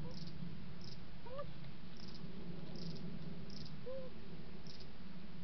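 Cricket chirping in short high pulsed chirps about once a second, with two brief low whistled notes in between, over a steady low hum.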